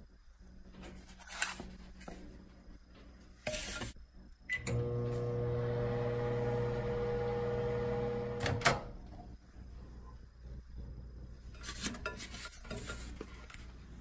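Frigidaire countertop microwave oven: a few clicks and knocks as it is shut and started, then a steady hum for about four seconds that ends with a sharp click. Light clatter of a paper plate being handled near the end.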